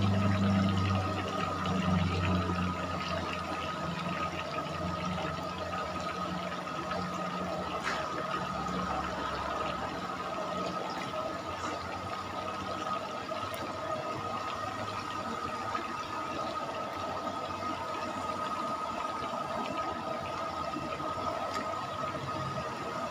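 Chicken pieces deep-frying in a wok of hot oil: a steady bubbling sizzle, louder in the first couple of seconds as fresh pieces go in. A thin steady whine sounds alongside.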